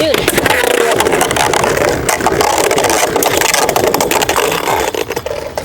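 Two Beyblade Burst spinning tops whirring and scraping around a plastic stadium after launch, with many rapid clicks as they strike each other and the stadium walls. The sound fades near the end as the round finishes.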